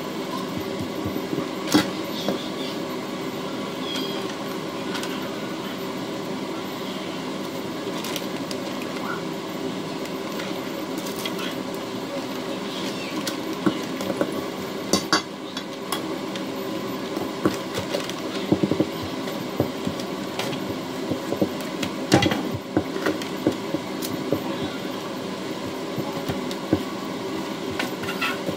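A rolling pin rolling over bread dough on a silicone mat, with scattered sharp knocks and taps as it and other kitchen things are put down and handled, over a steady background hum.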